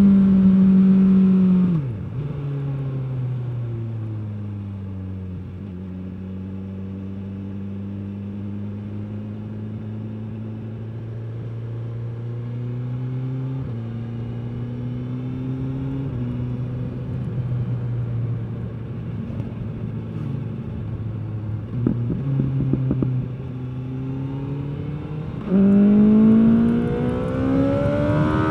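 2021 BMW S 1000 R's inline-four engine through its stock exhaust, heard onboard while riding. It runs loud at first, drops about two seconds in and pulls at lower, slowly shifting revs through most of the stretch. Near the end the throttle opens hard and the revs climb.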